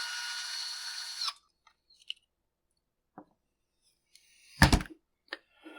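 Power driver backing out a chainsaw muffler screw, its motor whine cutting off suddenly about a second in. Then a few light clicks and one short, louder knock near the end.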